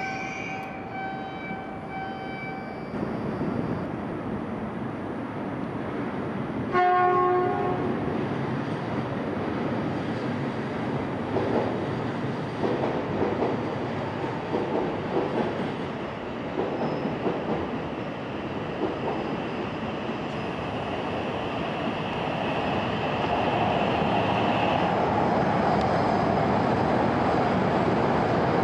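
Shinkansen train pulling into the platform: a short horn blast about seven seconds in, then the rumble of the cars rolling alongside grows louder as the train comes in, with a steady high whine partway through.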